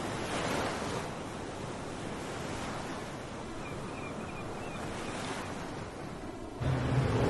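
Waves washing on a shore with wind on the microphone, swelling twice. Near the end it cuts abruptly to a louder, low, steady rumble of city traffic.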